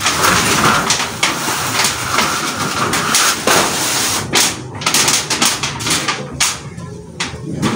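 Scraping and clattering on a corrugated metal roof sheet as it is worked on, followed by several sharp knocks in the second half.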